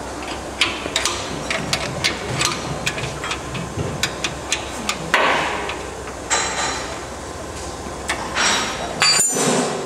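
Open-end spanner clinking on an electric motor's mounting bolts as they are loosened: a string of sharp, irregular metal clicks, then three longer scraping noises in the second half.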